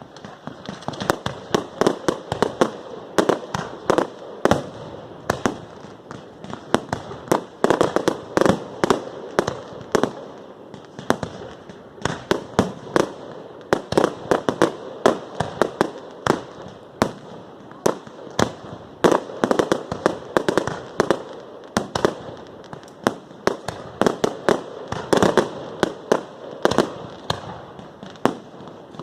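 Fireworks going off in a rapid, unbroken string of sharp bangs and cracks, several a second.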